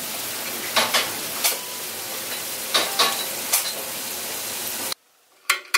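Steady sizzle of food frying, with several sharp clinks of dishes or utensils over it; the sizzle cuts off abruptly about five seconds in, followed by a couple of brief clicks.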